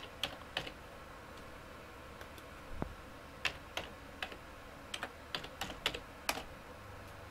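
Computer keyboard typing: a dozen or so separate, quiet key clicks at an irregular pace.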